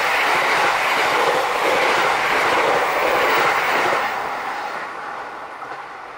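JR West 681/683-series limited express electric train passing close at speed, its wheels and running gear making a loud, steady rushing rumble on the rails that fades away over the last two seconds.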